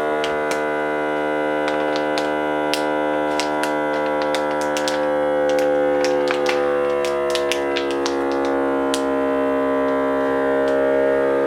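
Cosori automatic vacuum sealer's pump running steadily as it draws air out of a bag of cauliflower, its pitch sagging slightly as the vacuum builds, with light crackles from the plastic bag.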